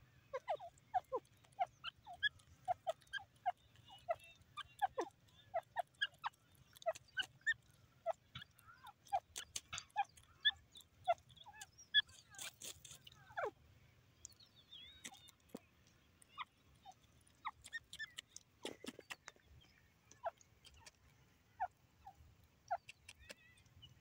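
Grey francolin giving many soft, short calls, several a second through the first half and sparser after. A few sharp clicks come around the middle.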